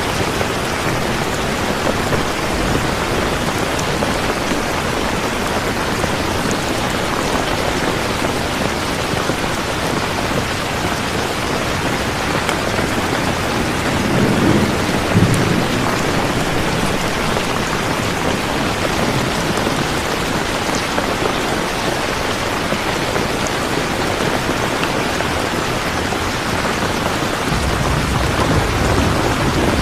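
Steady heavy rain falling, with a low rumble of thunder swelling briefly about halfway through and another rumble starting near the end.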